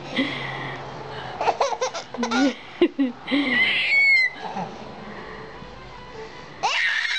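Five-month-old baby cooing and laughing, a string of short calls that rise and fall in pitch, with a higher squeal about four seconds in.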